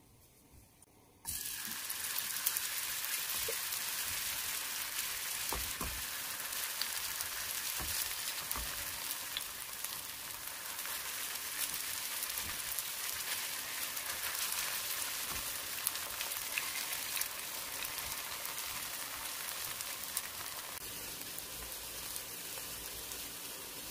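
Kimchi-and-seafood pancake batter sizzling in hot oil in a nonstick frying pan. It starts suddenly about a second in as a steady hiss with scattered crackles.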